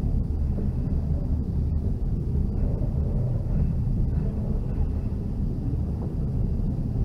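Passenger train rolling slowly into the station, a steady low rumble.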